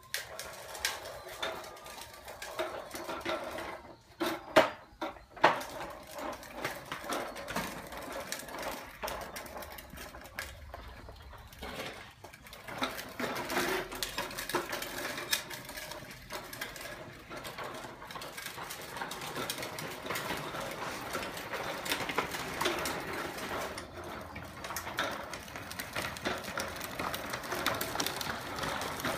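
Hard plastic wheels of a child's ride-on tricycle rolling over concrete and paving stones: a continuous rattling grind, with a few sharp knocks about four to five seconds in.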